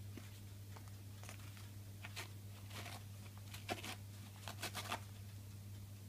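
Pink galah tearing and shredding a toilet paper roll with its beak: a series of short paper rips, bunched from about two to five seconds in, over a steady low hum.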